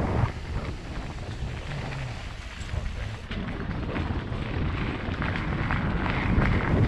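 Mountain bike rolling down a dirt and gravel trail: low wind rumble on the camera's microphone with tyre crunch and short rattling knocks over the bumps. It drops quieter just after the start and builds again toward the end.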